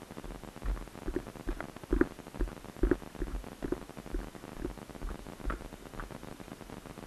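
Irregular low thumps and knocks, several a second, loudest about two to three seconds in, over a faint steady hiss.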